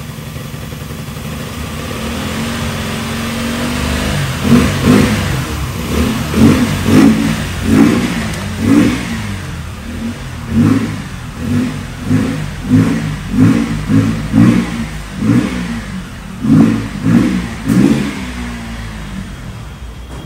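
KTM Duke 200 single-cylinder engine idling, then blipped repeatedly by the mechanic, about fifteen short revs roughly one a second, before dropping back to idle near the end. The revving comes as the mechanic adjusts the bike during its service.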